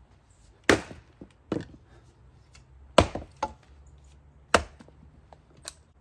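Axe chopping into firewood rounds, splitting them: three sharp chops, the first about two-thirds of a second in, with lighter knocks between them.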